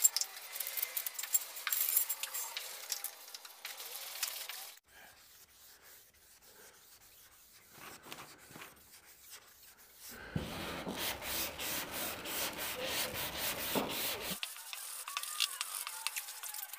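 Hand block-sanding of primer on a pickup's body panel with 320-grit sandpaper on a flexible block, in rasping back-and-forth strokes. It goes much quieter about five seconds in, then picks up again around ten seconds in.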